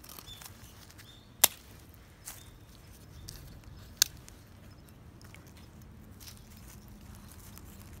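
Dry twigs on a small smoldering campfire of sticks and leaves giving two sharp cracks, about a second and a half in and again at four seconds, with a few fainter crackles between.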